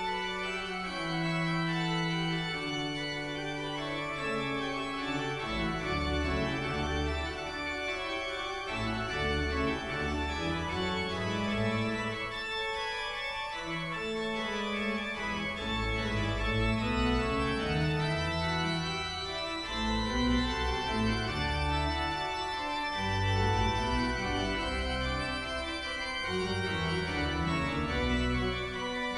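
Organ music: held chords over a bass line that steps from note to note.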